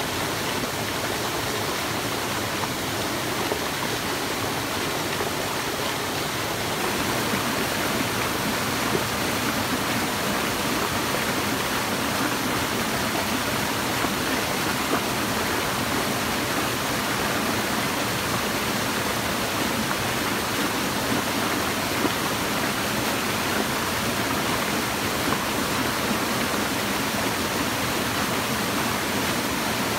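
Steady rush of a stream running over rocks, stepping slightly louder about seven seconds in.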